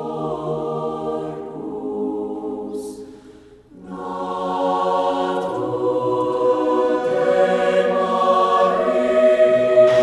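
Opening theme music of held choral chords, voices sustaining long notes. It fades almost away about three and a half seconds in, then swells back and builds.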